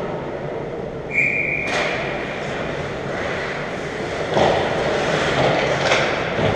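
Ice hockey play on a rink: skates on the ice, with sticks and puck knocking. About a second in there is a short shrill tone, cut off by a sharp crack.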